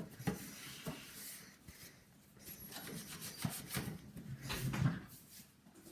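Wiping and rubbing on a desktop computer case with a cleaning towel, in a series of irregular short strokes.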